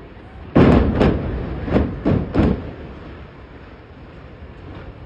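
Explosive demolition charges of a tower-block blowdown going off as a series of loud bangs, five in about two seconds, each echoing and dying away.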